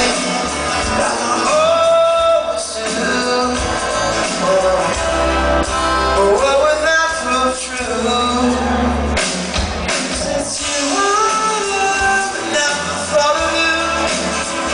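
Live rock band playing a song with a singer's voice over the instruments and a heavy bass line.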